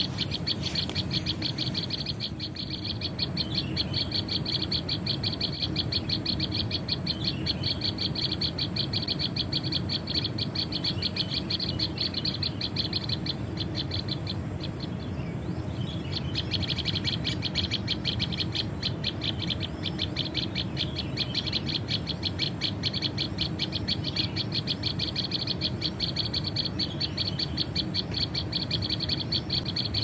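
Recorded prenjak (prinia) calls played through a small speaker as a trapping lure: rapid, evenly repeated chirping that breaks off for a couple of seconds about halfway, then resumes.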